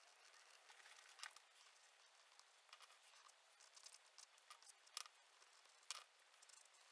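Faint scratching and rustling of paper being worked by hand: a pastel pencil stroking on pastel paper and a translucent protective sheet laid over the drawing, with a few brief sharper clicks about a second in and near five and six seconds.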